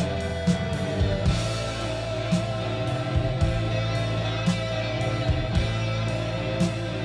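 Rock music played back over Elfton Vegas II four-way hi-fi loudspeakers: an instrumental passage with electric guitar, sustained bass notes and a regular drum beat, with no vocals.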